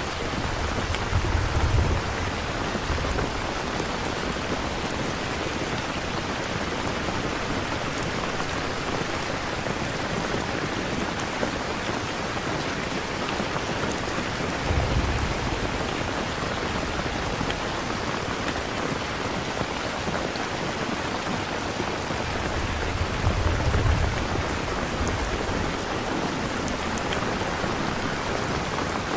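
Steady rain, with low rolls of thunder about a second in, around halfway and again near the end.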